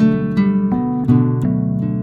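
Background music: acoustic guitar strummed, with a new chord about every half second.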